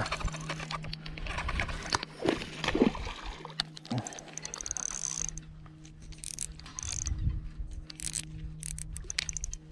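Spinning reel being cranked while reeling in a hooked largemouth bass: a steady whir from the reel's gears with many sharp clicks throughout.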